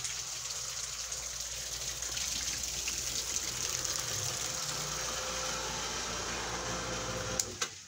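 Steady rushing noise like running water or rain, under a faint low hum; near the end, two sharp clicks, then the noise drops away suddenly.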